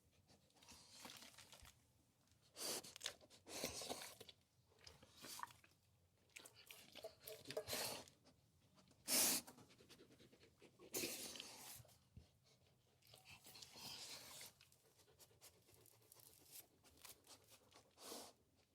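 A big dog eating, chewing and crunching its food in irregular bursts with quieter gaps between, the loudest bite about nine seconds in.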